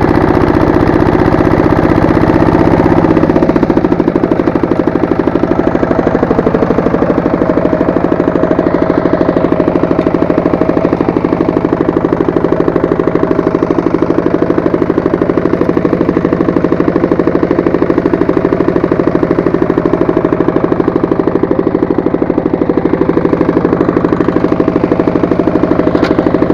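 Walk-behind tractor engine running loudly and steadily; its note drops to a lower pitch about three and a half seconds in and holds there.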